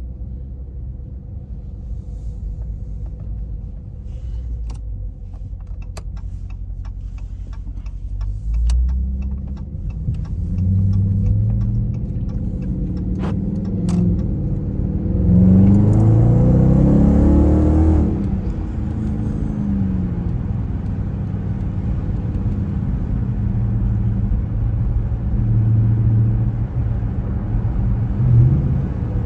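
Dodge car's engine rumbling at low speed with scattered sharp clicks, then accelerating hard, its pitch rising for about three seconds before dropping off suddenly. It then settles into a steady cruising drone.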